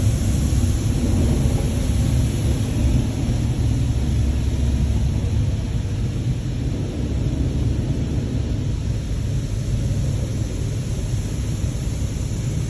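Touchless car wash's high-pressure water jets spraying the car's roof and windows, heard inside the cabin as a steady low rumble with hiss.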